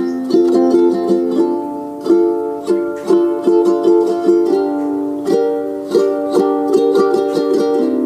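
Background music led by a plucked ukulele, with notes picked in a steady, even rhythm.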